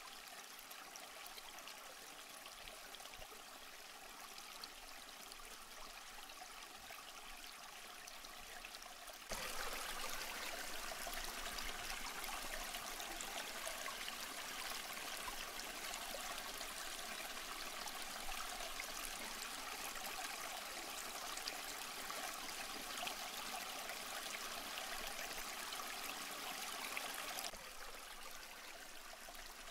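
Aquarium water trickling and splashing steadily, as from a filter outflow. It gets abruptly louder about nine seconds in and drops back to the quieter level near the end.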